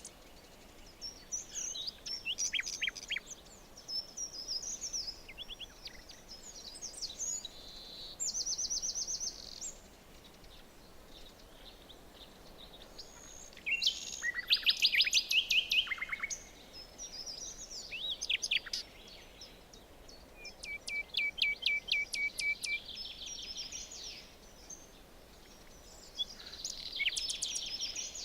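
Several songbirds singing and calling in a forest, with repeated rapid trills, over a faint steady background hiss.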